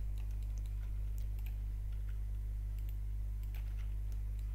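Faint scattered clicks of a computer mouse and keyboard over a steady low electrical hum.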